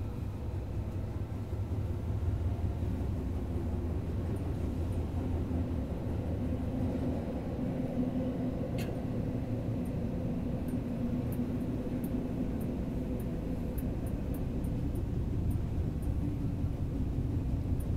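Tokyo Metro Yurakucho Line subway train running through a tunnel between stations, heard from inside the car: a steady low rumble with a faint motor hum that swells in the middle, and a single sharp click about nine seconds in.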